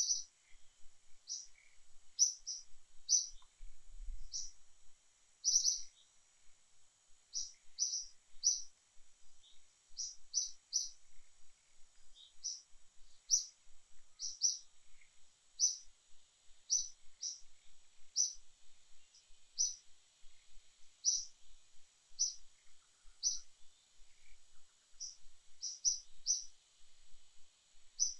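A bird chirping repeatedly: short high chirps, often in quick pairs, about one or two a second, over a faint steady high hiss.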